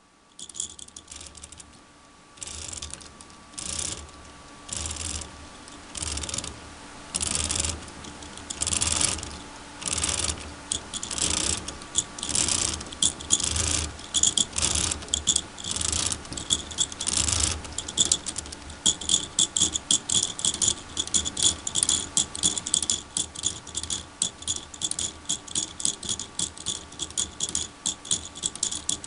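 Plastic Lego Technic winding ratchet, a worm gear clicking over a 24-tooth gear, rattling in short bursts about once a second, then clicking rapidly and without pause from about two-thirds of the way in.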